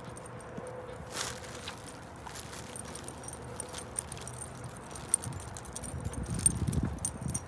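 Light metallic jingling and clicking from a small dog's harness tag and leash clip as the dog walks on a leash. Low thumps and rustling from the walk grow louder over the last couple of seconds.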